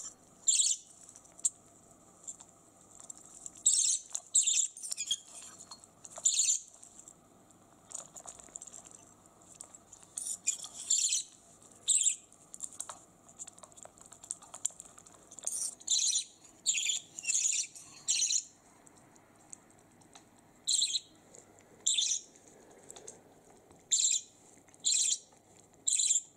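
Budgerigar giving short, high chirps, singly and in quick runs of three or four with pauses of a second or more between.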